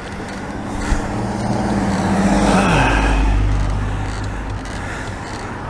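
A motor vehicle passing by on the road: its engine and tyre noise builds to a peak about three seconds in, the engine tone drops in pitch as it goes past, and then it fades away.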